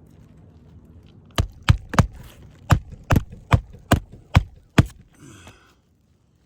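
Hammer striking nine sharp blows in quick succession, about two to three a second, on a roof shingle being worked for a repair test. A brief rustle follows near the end.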